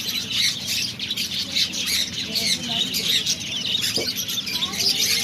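Many caged pet birds at a bird market chirping and squawking at once, a dense, unbroken chatter of short high-pitched calls.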